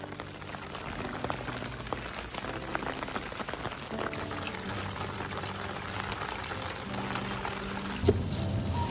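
Steady rain falling, an even hiss with many fine ticks of single drops, and one louder knock near the end.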